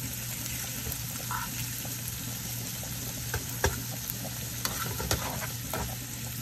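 Chopped onions, tomatoes and garlic with diced bacon sizzling steadily in oil in a frying pan as they cook down. A slotted spoon stirs them, with a few clicks and scrapes of the spoon against the pan in the second half.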